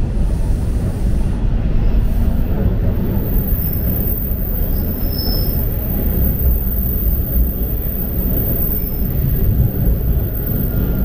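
TTC Line 2 subway train running at speed, a steady loud rumble of wheels on rails heard from on board, with a faint, brief high squeal about five seconds in.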